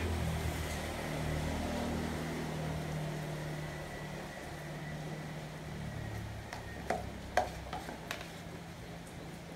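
A metal spoon scraping and tapping a plastic bowl as wet spice paste is spooned out onto fish, with a few sharp clicks near the end, over a low steady hum.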